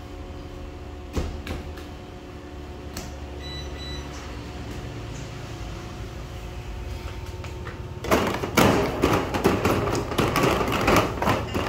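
A steady machine hum with a couple of single knocks as dough is worked on a stainless-steel table. About eight seconds in, a much louder run of clattering begins as metal square bread-loaf tins are handled.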